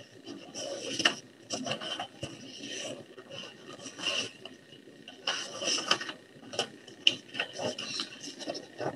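Paper and small objects being handled on a desk: irregular rustling and scraping in short bursts, with a few light knocks.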